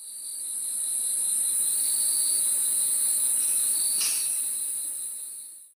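Night chorus of crickets trilling steadily in a high band. It fades in at the start and fades out near the end, with a faint tick about four seconds in.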